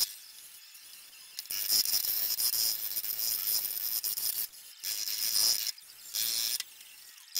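A flat hand tool scraped in strokes across the bare steel quarter panel of a 1970 Datsun 240Z, smoothing the area where the side marker was filled. The strokes start about a second and a half in and come in several runs with short pauses between them.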